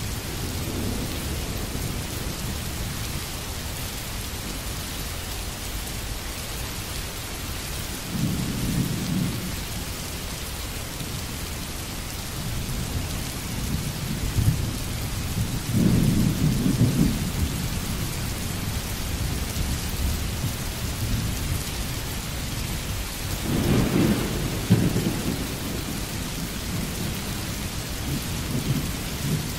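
Steady rain hiss with three low rolls of thunder swelling and fading, the longest and loudest in the middle and near the end.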